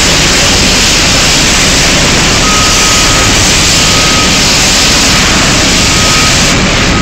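Fire extinguisher discharging in a steady, loud hiss. From about two and a half seconds in, a faint beep repeats at regular intervals.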